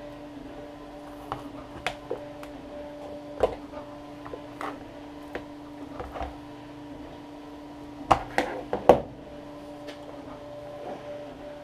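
Scattered light clicks and taps of the plastic casing and snap-in clips of a MacBook battery pack being handled and pressed, with a burst of louder clicks about eight seconds in, over a steady low hum.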